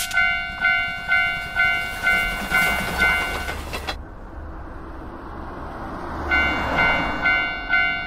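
Japanese railroad crossing bell ringing its "kan-kan" about twice a second over the rushing noise of a passing train. The train noise cuts off about four seconds in, the bell stops shortly before that, and the bell starts ringing again a little after six seconds.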